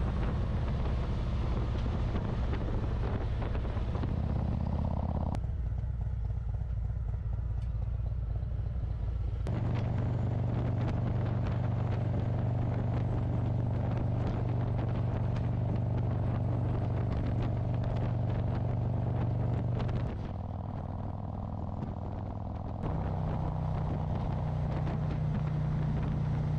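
Motorcycle engine running steadily at road speed, with road and wind noise. Its low note jumps to a different pitch abruptly several times.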